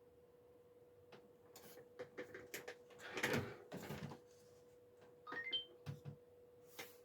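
Clicks and rustling of a camcorder and its cable being handled, loudest about three seconds in, with a few short rising electronic beeps about five and a half seconds in, over a steady faint tone.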